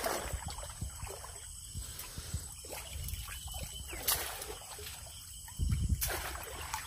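Water splashing and trickling as a bamboo fish trap is lifted, tipped and shaken in shallow muddy water. A few sharper splashes stand out, the loudest just before six seconds in.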